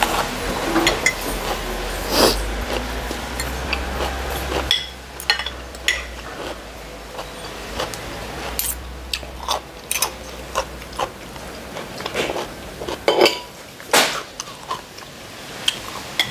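Close-up eating sounds: chewing a bite of raw cucumber, and a metal fork and spoon clinking and scraping on a ceramic plate in many short sharp clicks.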